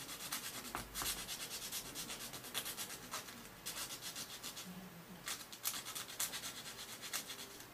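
A small wooden model part sanded by hand on a sanding stick: quick, short, scratchy rubbing strokes, broken by two brief pauses around the middle.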